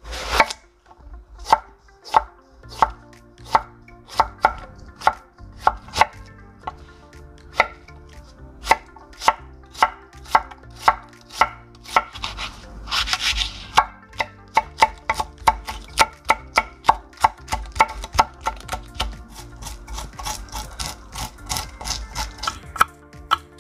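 Kitchen knife chopping vegetables on a wooden cutting board: a long run of sharp knocks, two or three a second. Near the end a spoon scrapes seeds out of a halved red chili with a rasping sound between the cuts.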